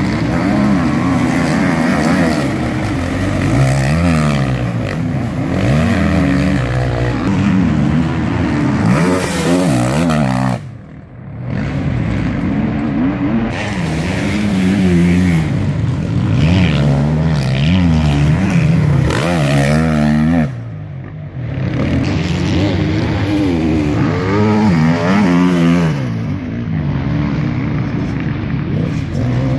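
Off-road enduro motorcycle engines revving hard, pitch climbing and falling again and again through gear changes. The sound drops away briefly twice, about a third and two-thirds of the way through.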